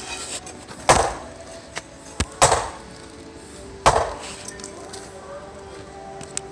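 Three heavy blows of a hammer striking a wooden concrete-form board, about a second and a half apart, each ringing out briefly.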